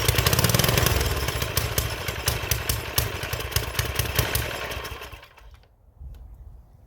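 Small mini bike engine, just primed with fuel after sitting for years, catching on choke and running for about five seconds before dying out.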